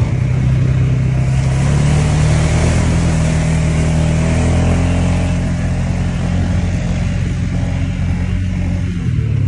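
A vehicle engine running steadily under way, with a rushing haze of wind and tyre noise. Its pitch eases up slightly about a second and a half in and dips near the end.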